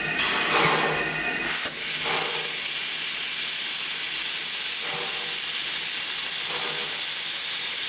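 Steam venting from a narrow-gauge steam locomotive: a loud, steady hiss that comes on about two seconds in and holds level.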